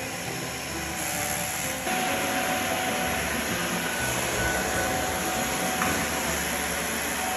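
Vacuum cleaner motor running steadily, with a constant rushing noise and a high whine. It gets louder about two seconds in.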